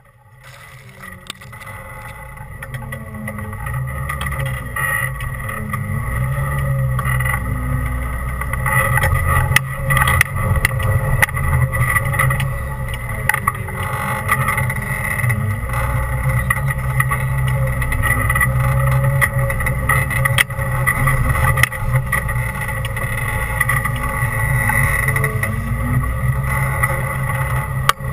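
Four-wheel-drive rig's engine running low and steady as it crawls a rough trail, with a steady high whine over the rumble and frequent knocks and rattles from the body. The sound fades in over the first few seconds.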